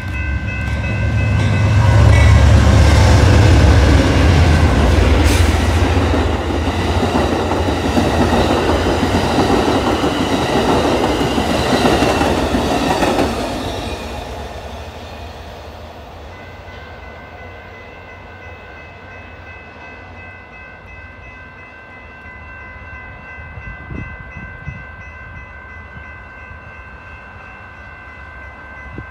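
Amtrak passenger train led by a GE Genesis P42DC diesel locomotive passing through at speed. The locomotive's deep engine rumble peaks a couple of seconds in. Superliner cars then clatter past for about ten seconds before the sound fades away. A steady high ringing tone is heard before the train arrives and again after it has gone.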